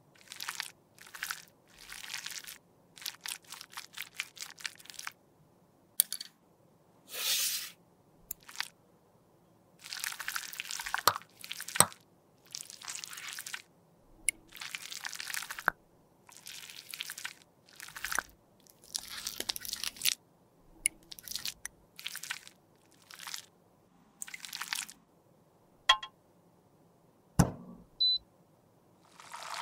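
A metal spatula scraping and cutting a lipstick bullet in many short, crunchy strokes. A few sharp clicks come in between as lipstick pieces drop into glass beakers.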